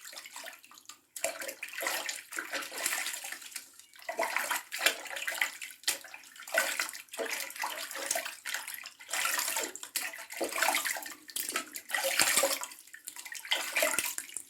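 Water splashing and sloshing in a basin in irregular surges, as when something is being washed.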